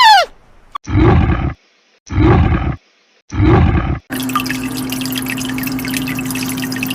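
Three short, deep animal calls about a second apart, then a steady buzzing drone with a low hum lasting about three seconds.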